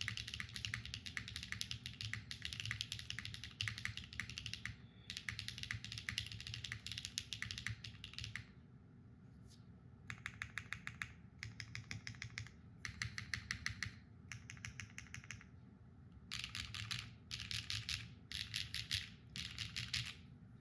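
Typing on a gasket-mounted Neo65 mechanical keyboard with a copper bottom, carbon fibre plate and Keygeek Purple Dawn switches under JTK Night Sakura keycaps. A fast, continuous run of keystrokes for about eight seconds, then a short pause, then quick bursts of typing separated by brief gaps.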